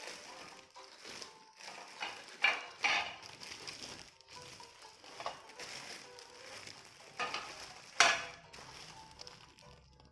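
Plastic packaging being handled and torn open: a stretch of rustling and crinkling broken by several sharp crackles, the loudest about eight seconds in.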